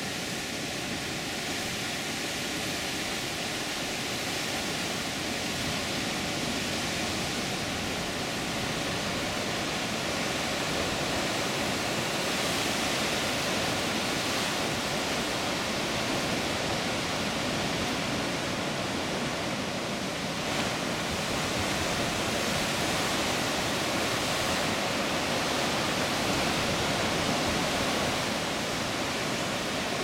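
Heavy ocean surf breaking and washing over jagged rocks: a steady, even rush of surf with no single crash standing out, growing slightly louder about a third of the way in.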